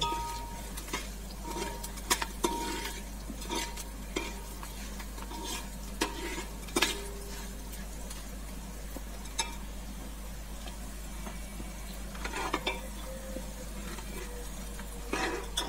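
Whole spices, curry leaves and green chilli sizzling in hot oil in a large aluminium pot, stirred with a slotted steel spoon that scrapes and clinks against the pot. The spices are being tempered, fried until they crackle and give off their aroma.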